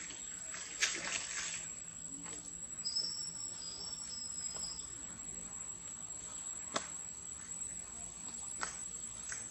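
Steady high-pitched drone of insects in tropical forest. A short wavering high call sounds about three seconds in, and a few sharp clicks come from monkeys moving among the branches.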